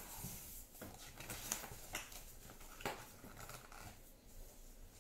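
Paper pages of a picture book being handled and turned, a few faint soft rustles and taps.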